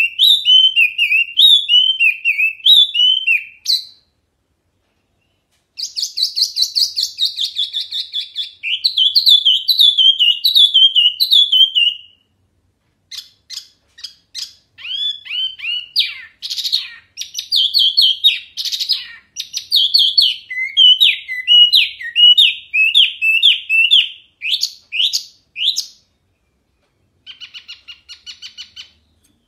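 A caged wambi mini songbird singing loud, clear, rapid runs of chirping and trilling notes. It sings in phrases several seconds long, with short pauses between them.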